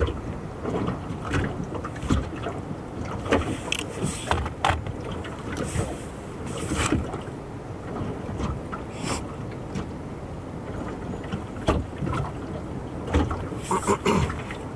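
Sea water lapping and slapping against the hull of a small moored fishing boat, with irregular knocks and splashes.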